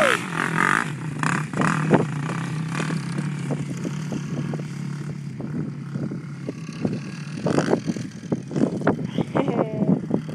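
Small ATV engines running steadily as the quads ride around, with wind flapping on the phone's microphone.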